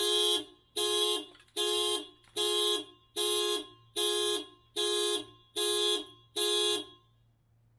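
A vehicle's warning signal sounding nine times in an even series, each beep about half a second long and a little under a second apart, then stopping.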